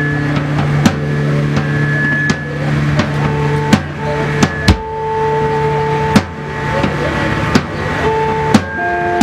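Live band starting up: long held instrument notes that shift every second or two, broken by scattered sharp drum hits before the full beat comes in.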